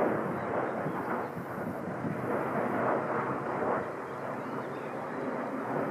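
Wind buffeting the microphone in uneven gusts, a rushing noise that stops abruptly at the very end.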